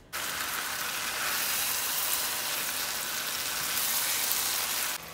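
Marinated meat sizzling loudly in hot oil in a pot as it is stirred with a spatula: a steady hiss that starts suddenly and cuts off suddenly near the end.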